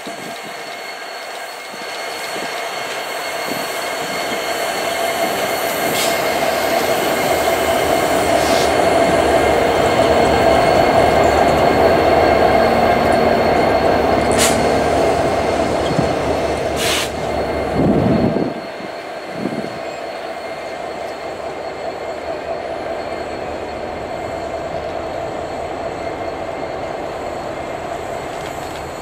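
Passenger train passing behind Union Pacific diesel locomotives, led by SD70ACe No. 1943. The locomotives' engines build to a loud rumble and drop away suddenly about eighteen seconds in, leaving the passenger cars rolling by with a steady wheel squeal and a few sharp clicks from the wheels.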